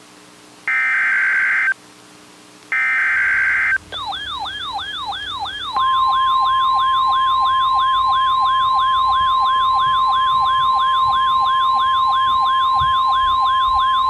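Emergency Alert System SAME header data bursts: two short, harsh, buzzing digital screeches about a second each, marking the start of a new warning. About four seconds in, a siren-like warbling attention tone begins, about three sweeps a second. About two seconds after that it is joined by the steady 1050 Hz NOAA Weather Radio warning alarm tone, and both sound loudly together.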